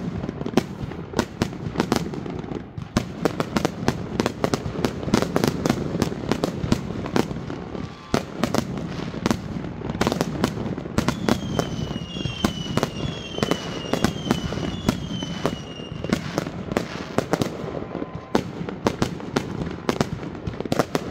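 Consumer fireworks barrage: a dense, rapid run of launch thumps and bursting cracks. About halfway through comes a string of about five short whistles, each falling in pitch.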